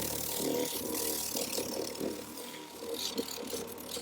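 Cordless polisher running with a steady motor whine, its pad rubbing over a van's painted body panel; the machine is too weak to cut through the paint and filler.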